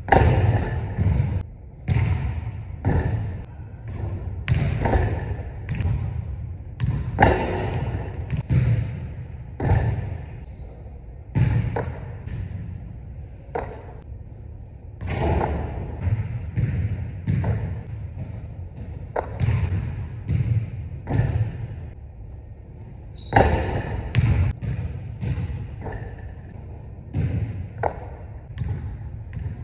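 Basketball bouncing on a hardwood gym floor and striking the rim and backboard during free-throw shooting: a steady run of thuds, mostly half a second to a second apart, each trailing an echo from the large hall.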